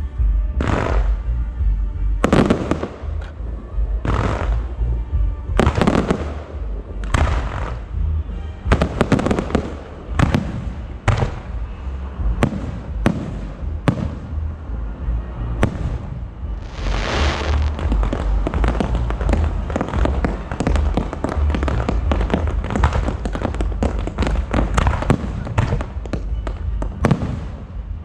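Fireworks show: aerial fireworks bursting one after another, dozens of sharp bangs with hissing, crackling trails, coming faster and denser in the second half.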